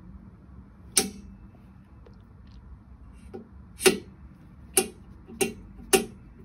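Convoy H3 flashlight's magnetic tail cap clicking against a metal surface. One sharp click comes about a second in, then four more sharp clicks follow less than a second apart near the end.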